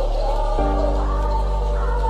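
Background music: a song with a sung vocal line over held bass notes, which change to a new chord about half a second in.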